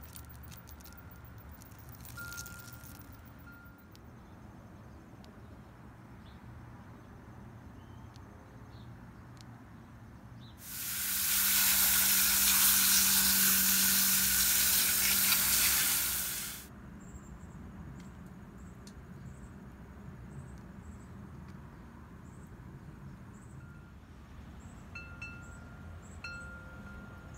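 Garden hose spray nozzle spraying water onto freshly pulled beets to wash off the soil. It is a steady hiss that starts about eleven seconds in and stops about six seconds later.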